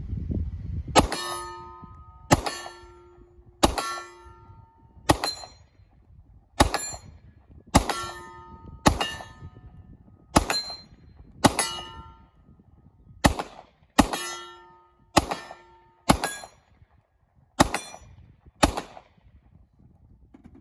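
Fifteen shots from a Glock 40 10mm pistol, fired at a steady pace a little over a second apart. Most shots are followed by a brief clanging ring as the bullet strikes a steel target at 25 yards.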